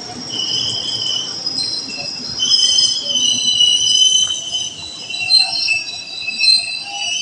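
Electric commuter train, an ex-Tokyo Metro 6000 series set, rolling slowly along a platform with a low rumble and several overlapping high-pitched squealing tones that shift a little in pitch and grow louder about two and a half seconds in.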